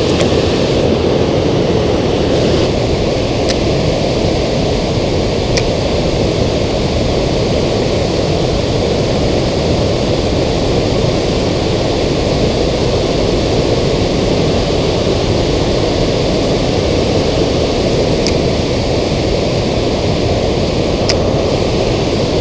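Water rushing over a river spillway, a steady loud roar with no change, with a few faint clicks scattered through it.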